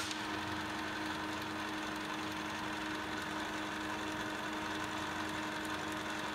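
South Bend Heavy Ten lathe running under power, its two-speed three-phase motor and gear train giving a steady, even hum. There is one sharp click right at the start as the apron's cam-style clutch is worked.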